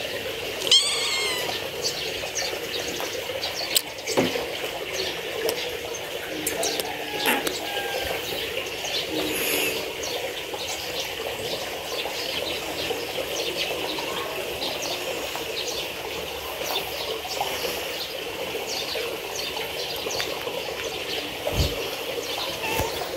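Kittens meowing a few times, the clearest call high and bending about a second in, over a steady background hiss.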